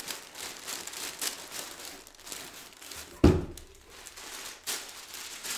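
Tissue paper and a large bundle of clothes rustling and crinkling as they are handled, with one loud thump about three seconds in.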